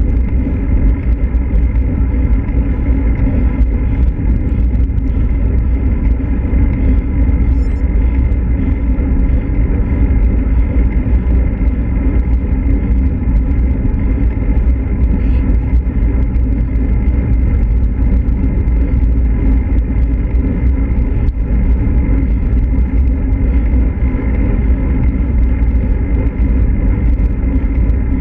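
Steady low rumble of wind and road noise on a handlebar-mounted action camera as a road bike rolls along asphalt.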